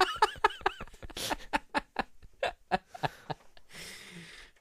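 Laughter: a voiced laugh in the first second, then a run of short breathy bursts of laughing that fade out.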